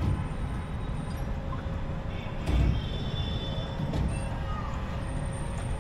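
Outdoor amusement-park background noise: a steady low rumble with faint high tones drifting over it.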